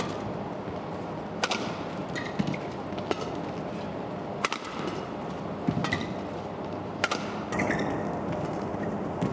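Badminton rally: about six sharp racket strikes on the shuttlecock, one every second and a half or so, with short squeaks of shoes on the court over steady crowd noise.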